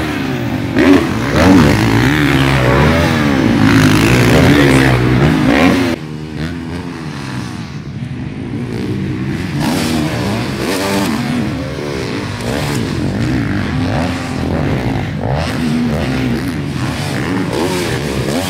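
Motocross dirt bike engines revving hard on a track, their pitch rising and falling repeatedly as the throttle is worked over jumps. About six seconds in the sound drops to a quieter, more distant run of revving.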